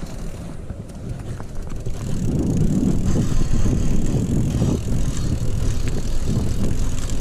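Mountain bike rolling down a dirt trail: tyres on dirt and gravel, with the bike rattling over bumps. It gets louder about two seconds in.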